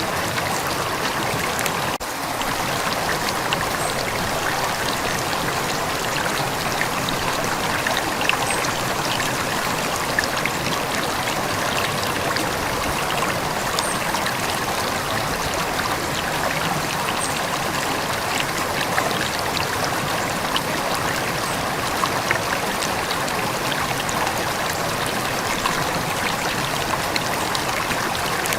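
A calm river flowing steadily, a continuous rushing and trickling of water with small scattered splashes.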